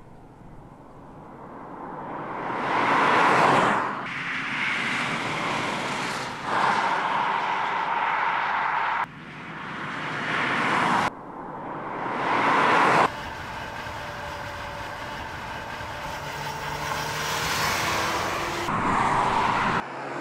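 Opel Insignia GSI driving by: engine and tyre noise swells as the car approaches and passes, over a run of shots that cut off abruptly one after another. Later on the engine note climbs as the car accelerates.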